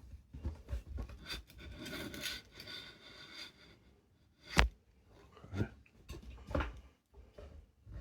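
Handling noises on a workbench: rubbing and scraping for a couple of seconds, then a sharp knock about halfway through and two softer knocks about a second apart.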